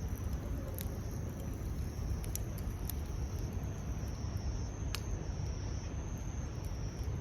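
Steady outdoor background: a low rumble with a thin, steady high-pitched tone above it, and a few scattered sharp clicks.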